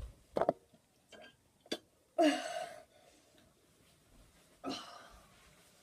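A boy making short wordless vocal noises, the loudest about two seconds in and another near the end, after a few light knocks.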